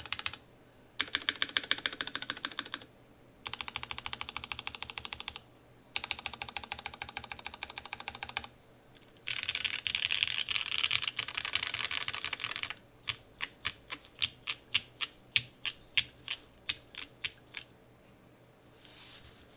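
A TGR 910 ME mechanical keyboard with lubed and filmed Cherry MX Black Ultraglide linear switches, a polycarbonate plate, an O-ring mount and GMK keycaps is being typed on fast, in bursts of about two seconds with short pauses between. Past the middle the fast typing stops and single keys are struck one at a time, about three a second, for several seconds.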